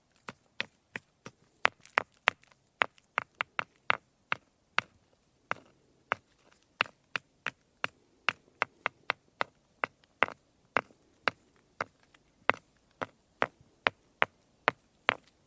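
Stones knocking and clicking against each other in an irregular run of sharp taps, about three a second, some louder than others.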